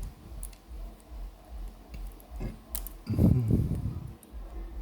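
Light clicks and taps of small phone parts being handled while the Samsung Galaxy A50's flex-cable connectors are pressed back into place, with one louder low thump a little past the middle.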